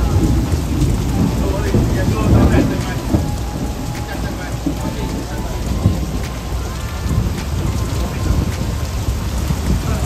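Heavy rain pouring down in a thunderstorm, with thunder rumbling under the steady hiss of the rain.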